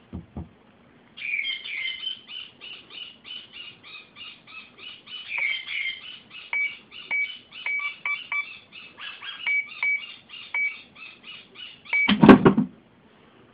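Keypad of a GunVault handgun safe beeping as combination keys are pressed: a long run of short, high electronic beeps, about two or three a second. A single loud thump comes near the end.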